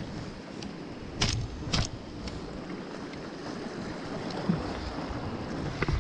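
Steady wash of sea waves with wind on the microphone. Two sharp knocks a little over a second in, about half a second apart, and a few fainter clicks.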